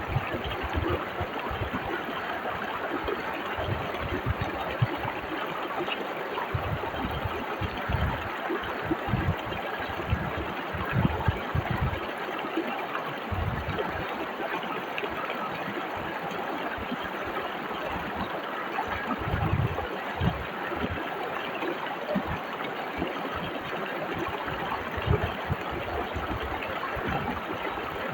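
Whitewater river rushing steadily over rocks, with irregular low thumps underneath.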